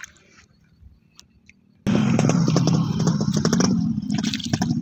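Near quiet with a few faint ticks, then a small engine cuts in abruptly about two seconds in and runs loud and steady with a rapid low pulsing.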